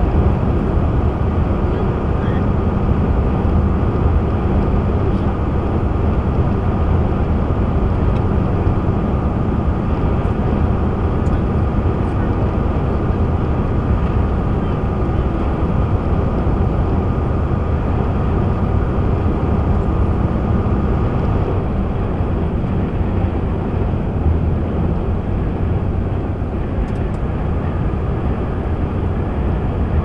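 Steady drone inside a truck cab at highway speed: engine and tyre noise with wind on the body, heard through the windshield-mounted dashcam. A faint high steady whine sits on top and fades out about two-thirds of the way through.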